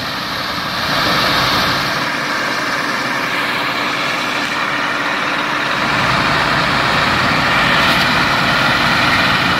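Tipper truck's diesel engine running steadily while its hydraulic hoist raises the dump body to tip out the load, getting a little louder about a second in.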